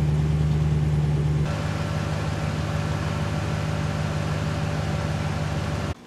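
Ram 1500 pickup's engine idling steadily, a little quieter after about a second and a half.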